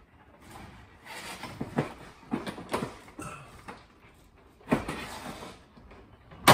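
ACiQ Extreme Plus ductless mini split indoor unit being hung on its wall mounting plate: its plastic housing scrapes and knocks against the bracket and wall in a run of short rubs and clunks, with one sharp click near the end, the loudest sound.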